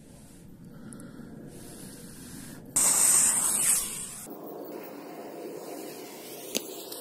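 Fuse of a Funke Tuono Gold 20 firecracker catching and hissing loudly for about a second and a half as it sprays sparks, then going on as a quieter hiss. A single sharp click comes near the end.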